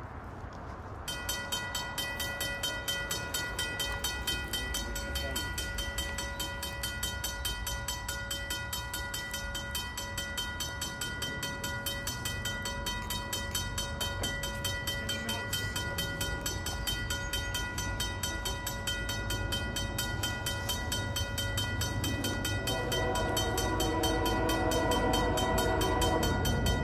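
Griswold/RACO mechanical railroad crossing bell starts ringing about a second in with rapid, even strikes, signalling that the crossing has activated for an approaching train. Near the end the train's Nathan K3L air horn sounds over the bell in pulsing blasts.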